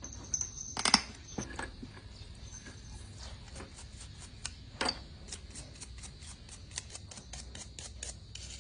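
Hand-scrubbing of dirty front-fork parts: a couple of sharp clicks about one second and five seconds in, then a long run of short, even rubbing strokes, about three a second.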